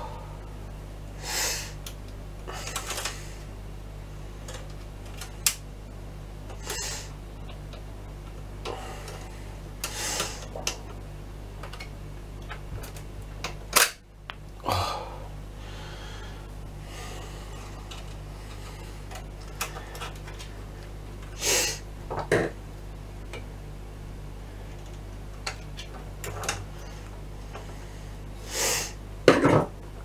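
Hands working inside an opened oscilloscope chassis: scattered plastic clicks, knocks and short rustles, irregular and a few seconds apart. A steady low hum runs underneath.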